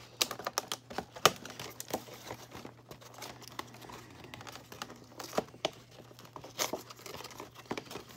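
Clear plastic tape being picked at and peeled off the cardboard backing of a doll box by fingertips: irregular crinkling, with sharp crackles and snaps, the loudest about a second in.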